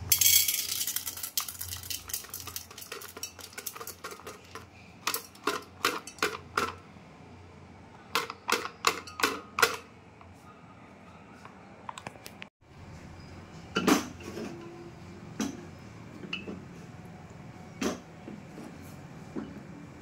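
Popcorn kernels pouring from a packet into a metal pressure cooker, rattling and clicking against the pan: a dense rush at first, then scattered clusters of clicks as the rest is shaken out.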